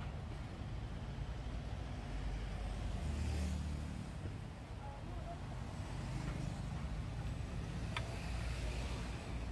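Road traffic: the low rumble of vehicle engines, with one vehicle passing louder about three seconds in. A short sharp click comes near the end.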